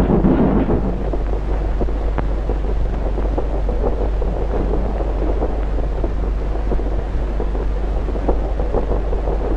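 A train running on the rails: a steady noise with scattered faint clicks, over a constant low hum from an old film soundtrack.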